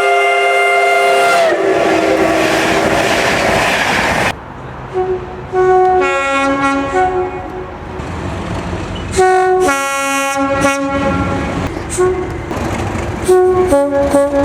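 Train air horn sounding a held multi-note chord that drops in pitch as the train passes, then the noise of the passing train with rail clatter. After a sudden cut, another train's two-tone horn sounds a series of short and longer blasts, alternating high and low.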